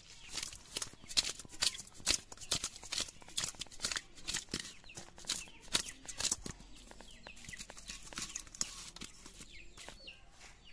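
Raw fish pieces being turned and rubbed with turmeric by hand in a stainless-steel colander: a quick, irregular run of wet clicks and taps against the metal that thins out after about seven seconds.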